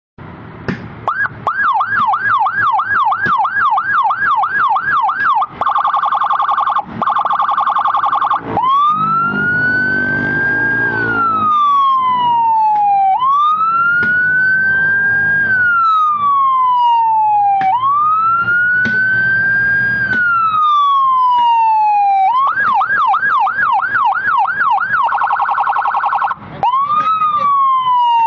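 Electronic siren module imitating the Whelen Epsilon (EPL) siren, cycling through its tones. It opens with a fast yelp of quick rising-and-falling sweeps, about two and a half a second, and breaks into a short rapid trill. Then comes a slow wail that shoots up and glides down every four to five seconds, and near the end the yelp, the trill and the wail come round again.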